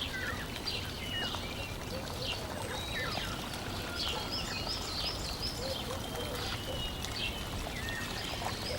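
Birds chirping and calling in many short, quick notes, including a fast run of repeated rising-and-falling notes about halfway through, over a steady rushing hiss.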